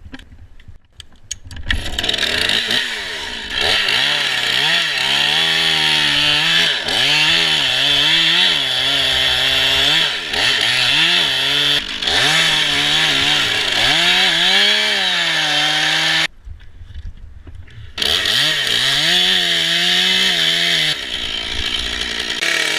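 Gas chainsaw cutting through a dead ash tree, its engine pitch dipping under load and rising back again and again. It drops back for about two seconds roughly three-quarters of the way through, then runs up again.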